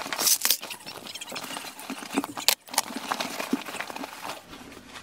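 Plastic toiletry bottles, tubs and packets being handled and moved around in a plastic storage basket: irregular clicks, knocks and rustling, with one sharper knock about halfway through.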